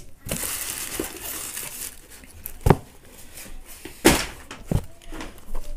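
Rustling and crinkling of shoebox packing as a pair of canvas sneakers is unpacked, followed by two or three sharp knocks as the shoes are set down on a desk.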